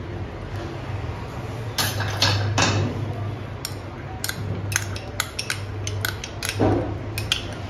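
A metal spoon scraping and clinking against a small glass bowl as it is emptied over a pan of simmering milk, in irregular clicks and scrapes that start about two seconds in. A low steady hum runs underneath.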